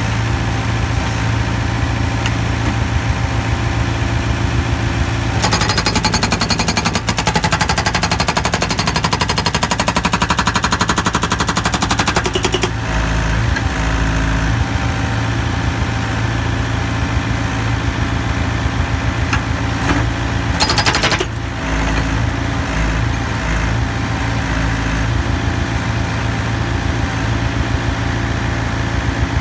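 OSA HB250 250 kg hydraulic breaker on a backhoe hammering concrete rubble with rapid, continuous blows, over the steady running of the backhoe's diesel engine. The blows turn louder and sharper for several seconds about a fifth of the way in, and briefly again about two-thirds through.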